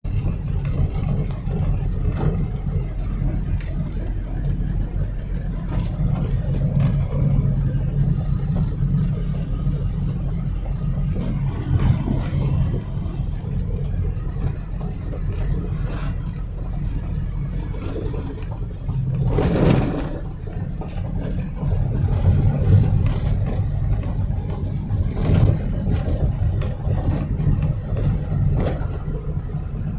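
Steady low rumble of a motor vehicle driving on a road, engine and tyre noise, with a brief louder swell about two-thirds of the way through.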